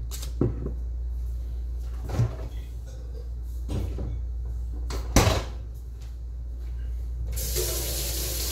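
A few sharp knocks and clunks, like cupboard doors and kitchenware, then a kitchen tap turned on about seven seconds in, water running in a loud steady hiss. A steady low hum runs underneath.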